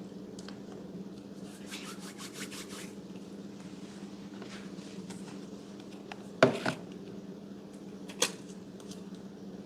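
Slime being handled, with scattered soft clicks early on. There is a sharp pop about six and a half seconds in, a second just after it, and another near eight seconds, all over a steady low hum.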